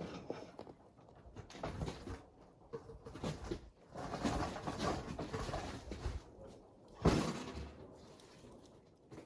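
Scattered knocks and rustling, with one sharp bang about seven seconds in.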